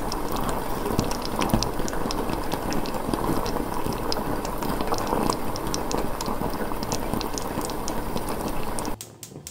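Pot of water at a full rolling boil, with noodles cooking in it: a steady bubbling with many small pops. It cuts off suddenly near the end.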